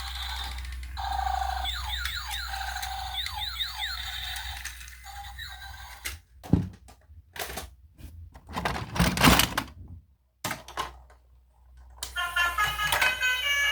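Toy vehicle's electronic sound effects: quick falling chirps over a steady hum, then a run of clicks and knocks with short gaps between them, and a beeping electronic tune starting near the end.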